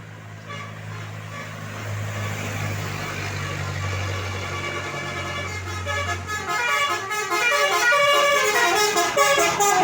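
A bus's Basuri telolet horn playing a quick melody of changing musical tones. It grows louder over the second half, over a low steady bus engine drone that drops away about two-thirds of the way through.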